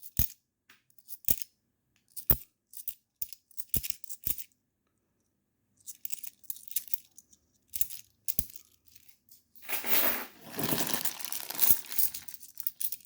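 Scattered sharp clicks of 10p coins being handled. About ten seconds in comes a two-second stretch of plastic coin bag crinkling, with coins shifting inside.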